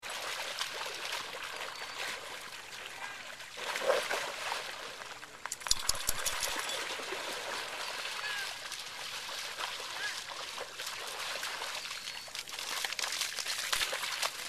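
Dogs splashing and wrestling through a shallow muddy puddle: water sloshing and splashing, with a cluster of sharper splashes about six seconds in.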